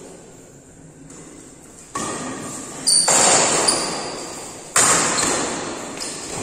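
Badminton racket strikes on a shuttlecock during a doubles rally: three sharp hits a second or two apart, each ringing on in the echo of a large hall.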